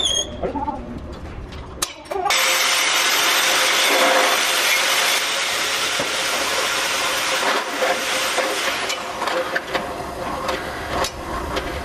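Drill press running a step drill bit through a flat steel bar: a steady motor hum under a loud, harsh cutting hiss that starts about two seconds in and goes uneven after about nine seconds.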